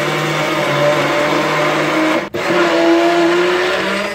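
Hand-held stick blender whirring as it purées chopped tomatoes, coriander and green chillies in a plastic jug. The motor cuts out for a moment about two seconds in and then starts again.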